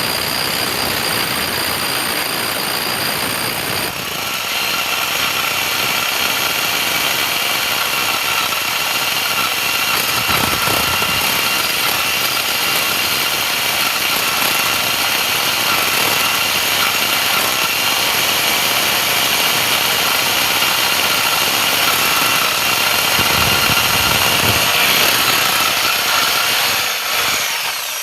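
Electric drill running continuously under load: a steady whine over a grinding rush. Its tone shifts about four seconds in, and it cuts off at the very end.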